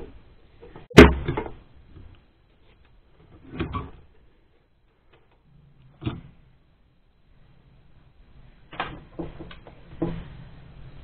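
Knocks and clunks of hardware being handled: a ventilation unit's radial fan being lifted out of a sheet-metal panel and taken apart on a wooden workbench. A sharp, loud knock comes about a second in, then a single clunk and a click, and a quick run of smaller knocks near the end.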